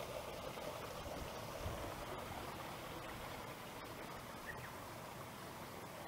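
Small mountain stream running with a steady rushing hiss.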